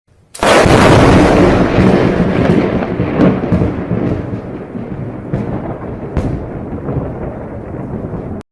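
A thunderclap: a sudden loud crack about half a second in, then a long rolling rumble that slowly fades, with a few sharper cracks along the way, cut off abruptly near the end.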